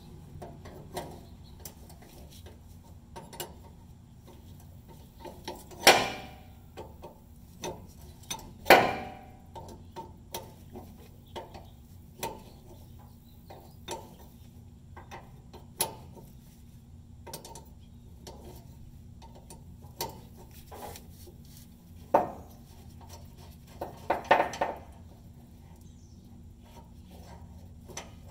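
Metal hand tools and parts clinking and knocking as a wrench is worked on the underside of a pickup truck: scattered light clicks, with louder clanks about six and nine seconds in and a short cluster of them later on.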